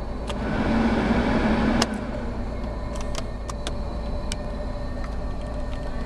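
Steady low hum inside the cabin of an idling 1987 Mercedes-Benz 560SL, with a tone that drops away about two seconds in. A string of light clicks comes from dashboard buttons and the stereo's controls being pressed.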